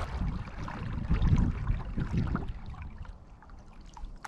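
Water splashing and trickling around a kayak and its paddle, over a low rumble of wind on the microphone that eases after about three seconds.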